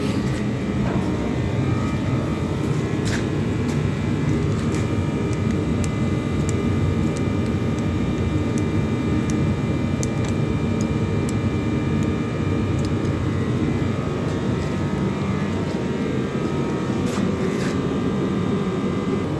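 A motor running steadily with a low drone and a faint whine, with a few light clicks and taps of hand work over it.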